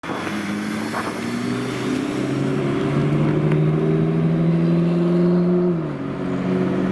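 McLaren P1 GTR's 3.8-litre twin-turbo V8 pulling away, its engine note climbing in several steps, then dropping about six seconds in.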